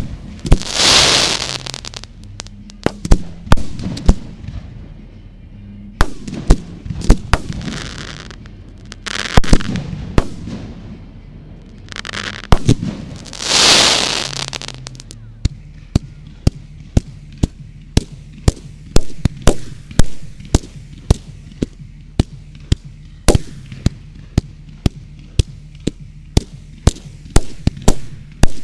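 Fireworks going off: sharp bangs mixed with several swelling hissing rushes from comets and fountains, then from about halfway a rapid string of sharp reports, about two or three a second, as a multi-shot cake fires.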